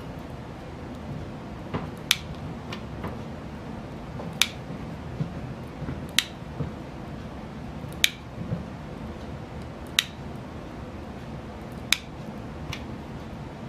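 Hot glue gun's trigger clicking sharply about every two seconds as glue is fed into the joint, with a few fainter clicks in between.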